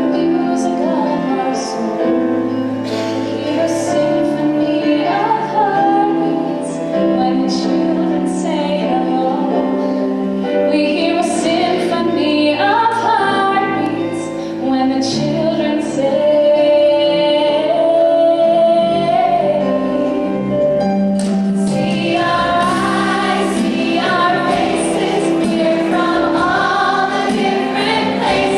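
A vocal ensemble singing a song over instrumental accompaniment, with a female voice prominent. About three quarters of the way in the sound fills out as more voices come in together.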